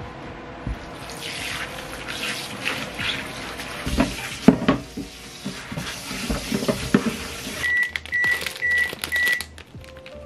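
Tap water running into a stainless steel sink as dishes are washed by hand, with dishes and containers knocking and clattering about four to seven seconds in. Near the end the water stops and four short, evenly spaced high beeps sound: a microwave signalling that its heating time is done.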